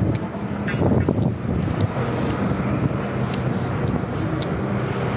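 Road traffic noise: motor vehicle engines running with a steady low hum, a small motor vehicle approaching along the road.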